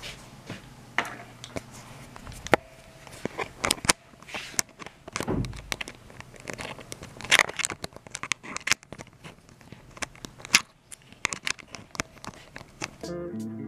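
Handling noise of a camera being put back onto a tripod, heard right at the camera's own microphone: irregular clicks, taps and scraping of fingers on the camera body. Music comes in right at the end.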